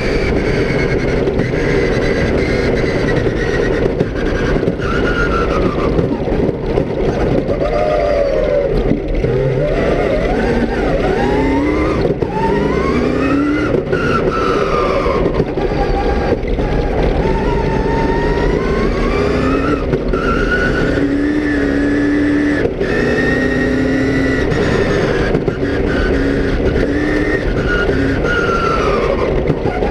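Rally car engine heard from inside the cockpit at stage pace, its pitch rising and falling repeatedly as it revs up and drops through gear changes, over a steady rumble of tyres on gravel, with occasional sharp knocks.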